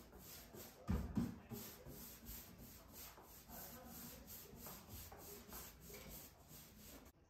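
Paintbrush stroking chalk paint onto a thin plywood panel: faint rhythmic back-and-forth swishes, about three a second, that stop abruptly near the end. A couple of soft knocks about a second in.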